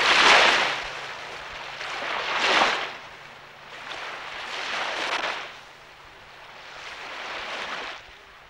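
Sea surf: waves wash in about every two and a half seconds, each a rising and falling hiss, and the later ones are fainter.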